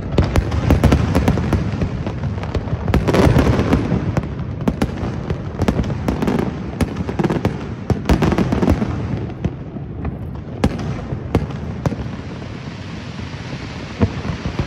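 Fireworks display: a dense barrage of bangs and crackling over a rumble, thinning out after about nine seconds, with one sharp bang near the end.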